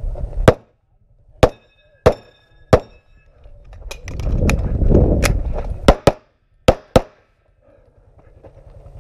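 Semi-automatic pistol firing eight shots in two strings of four, with thin metallic ringing lingering after several of them, as from hit steel targets. Between the strings, about four seconds in, there is a low rushing noise of movement and wind on the camera.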